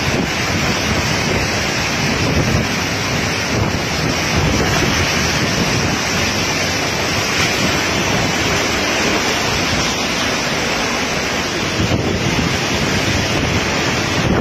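Typhoon-force wind and driving rain, a steady loud rush with wind buffeting the microphone.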